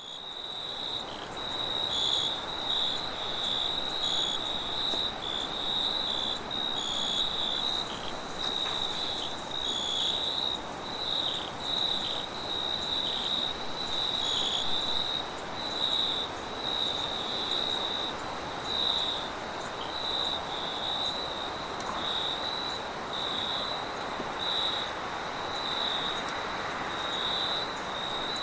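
Crickets chirping at night in quick, uneven pulses at one pitch, over a steady high insect trill, with a soft wind rush underneath. The chorus swells in over the first couple of seconds.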